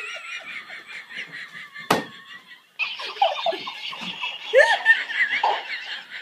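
Talking Tom plush toy repeating sounds in a high, sped-up, squeaky voice through its small speaker, with one sharp click about two seconds in.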